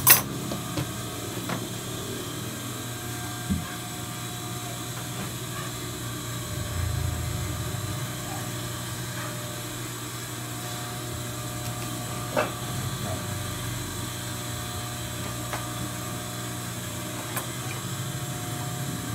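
Cloth being handled and laid out on a sewing-machine table, with a sharp click at the start and a couple of fainter clicks later, over a steady low hum.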